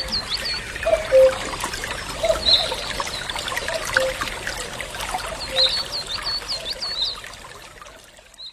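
Oriental magpie-robin calling insistently with food in its bill, which suggests a nest nearby: quick runs of short high whistled notes at the start and again about six seconds in. A short low note repeats about every second and a half throughout.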